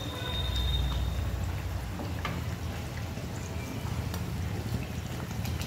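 Dal-stuffed puri deep-frying in hot oil, the oil sizzling steadily with a few faint pops over a steady low rumble. A brief thin high tone sounds in the first second.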